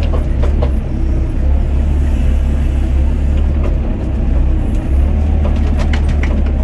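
Doosan DX55 mini excavator's diesel engine running steadily under digging load, its bucket scraping and scooping gravelly soil while digging a trench, with a few sharp clinks of stones against the bucket about half a second in and again near the end.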